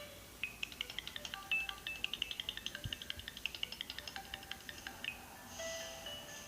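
Alcatel OneTouch Pop C1 mobile phone playing ringtones: a rapid run of short, high electronic notes. About five seconds in, that tune stops and a different ringtone with longer held notes begins.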